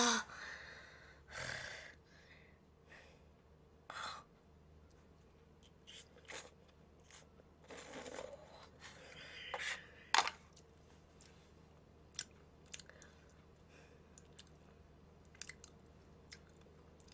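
A person eating instant noodles close to a microphone: a couple of short noodle slurps and chewing, with scattered mouth clicks and smacks separated by quiet pauses.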